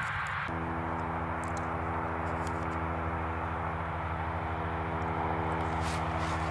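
Claas Lexion 750 combine harvester working through maize with its corn header, its engine and threshing machinery running steadily. A steady multi-tone hum joins the machine noise about half a second in.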